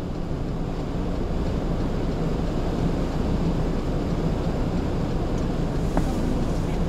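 Strong gale wind blasting across the microphone in a snowstorm: a steady, low, rumbling buffeting with no break. A brief click about six seconds in.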